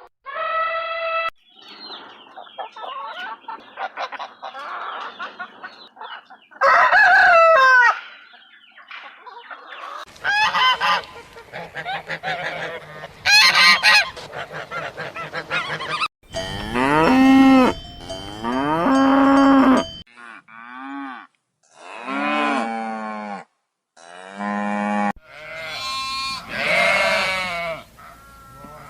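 A string of farm-animal calls, one short clip after another with abrupt cuts between them, including honking fowl and lowing cattle.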